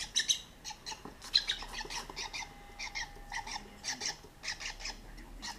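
Hand-reared lovebird chicks calling: quick bursts of high, raspy squawks repeated over and over, falling quiet near the end.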